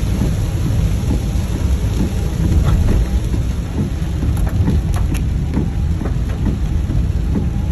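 Heavy rain falling on a car's roof and windshield, heard from inside the cabin of the moving car. It makes a steady low rumble with scattered sharp drop hits.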